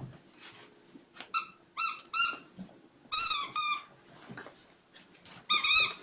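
Puppies whining in a series of short, high-pitched squeals, about six in all, with a longer one about three seconds in and a last cluster near the end.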